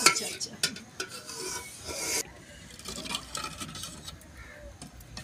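A long metal spoon stirring a simmering curry in a metal pot, scraping and knocking against the pot in short irregular strokes, with a brief hiss about a second in.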